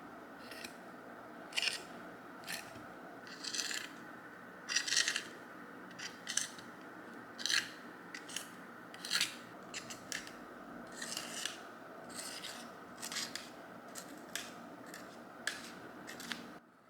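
A series of short, irregular scraping strokes, roughly one or two a second, over a steady background hum; they stop suddenly near the end.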